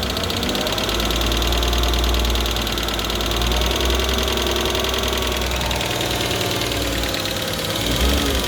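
BMW M50B25 straight-six engine running near idle with a fast rattle over it, the engine speed rising and falling slightly a few times. The rattle is the strange noise that the owner puts down to the VANOS variable cam timing unit.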